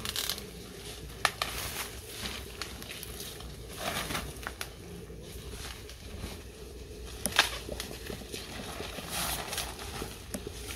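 Maize leaves and a plastic sack rustling and crackling as fresh ears of corn are picked by hand, with two sharp snaps, about a second in and again about seven seconds in.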